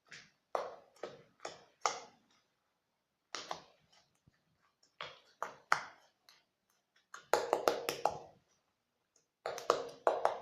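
Slime being handled: wet, sticky clicks and pops in irregular clusters, with short quiet gaps between them.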